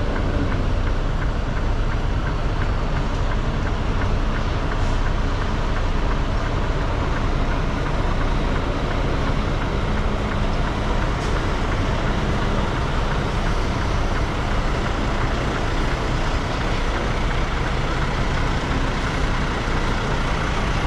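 Semi truck running down the road, heard from inside the cab: steady engine drone with road and wind noise.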